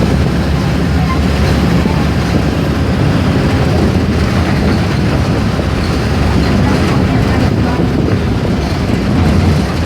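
Mercedes-Benz OF-1418 bus's front-mounted diesel engine running loud and steady, a deep rumble.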